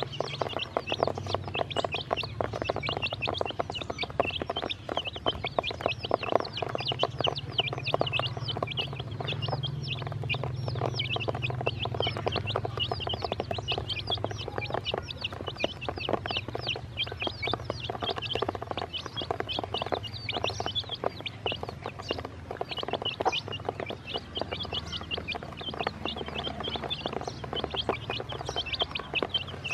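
A brood of about a dozen baby chicks peeping constantly, many short high chirps overlapping without a break.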